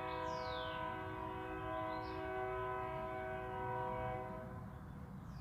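Train horn sounding a long, steady chord of several tones. A few short falling whistles sound above it near the start.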